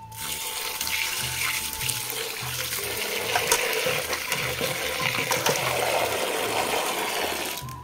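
A stream of running water splashing onto raw mutton pieces in a stainless steel colander as the meat is rinsed, draining through into the pot beneath. The water starts just after the beginning and stops shortly before the end.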